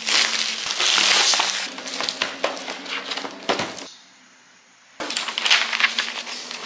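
Crinkling and rustling of plastic wrap being pulled off a cardboard flat-pack furniture box. After a brief quiet gap about four seconds in, large paper instruction sheets rustle as they are unfolded and handled.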